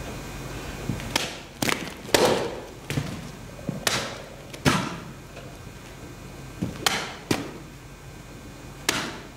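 Sword blade swishing and chopping through an upright cutting target, with cut pieces dropping to the floor. Six quick sharp cuts and impacts come close together, then a pause of about two seconds, then four more.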